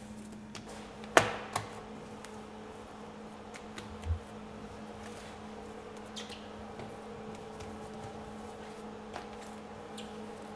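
Hands handling and folding a large mass of pizza dough on a granite counter. There is a sharp knock about a second in, a dull thump about four seconds in, and soft handling noises, all over a steady hum.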